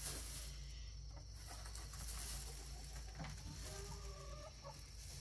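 Chickens clucking faintly, with a short run of clucks near the end.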